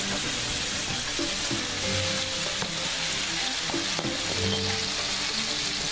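Pieces of breakfast sausage frying in melted butter in a non-stick pan, giving a steady sizzle.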